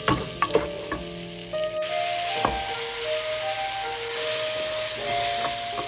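Food sizzling steadily in a hot frying pan, with a few sharp clicks in the first second and another about two and a half seconds in.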